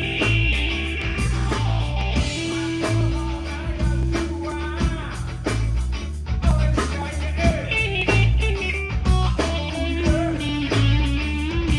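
Live rock band playing: electric guitar over bass and drums, with a steady beat and bending guitar notes.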